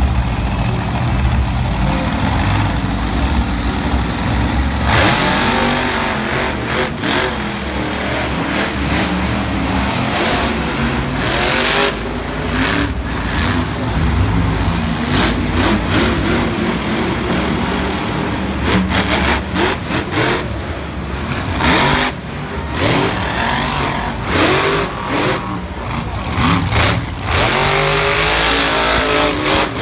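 Monster truck engines, supercharged V8s, revving hard and running at full throttle across a dirt arena, the pitch climbing and falling again and again, over a loud stadium din with a voice at times.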